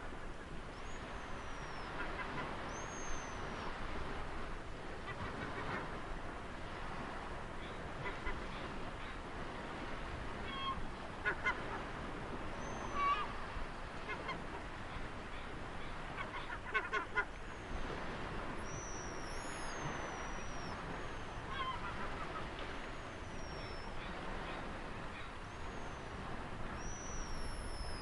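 Steady wash of ocean surf with bird calls over it: repeated short, high, falling chirps and a few brief bursts of harsher, lower calls.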